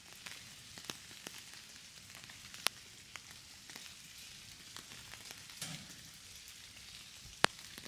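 Light rain falling: a soft, steady hiss of rain with scattered single drops ticking sharply on hard surfaces.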